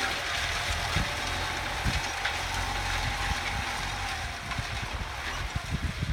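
New Holland TD90D tractor's diesel engine running steadily under load as it pulls a disc harrow through dry field soil, with a few low thumps in the second half.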